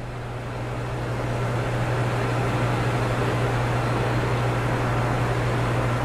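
Steady hum of brewery machinery: a strong low drone under an even hiss, growing a little louder over the first two seconds and then holding.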